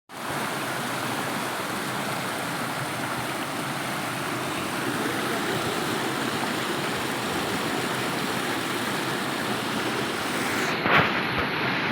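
Waterfall: a steady, even rush of falling water, with a brief louder knock near the end.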